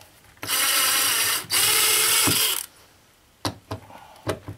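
Cordless drill driving a long screw into drywall in two runs of about a second each, the screw spinning through into the empty cavity behind with no resistance. Then a few light clicks near the end.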